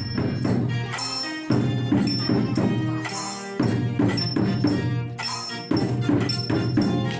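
Instrumental music with a steady beat, bass and light jingling percussion.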